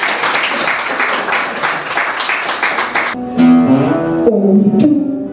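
Acoustic guitar strummed in a fast, even rhythm, changing about three seconds in to single picked notes stepping through a melody.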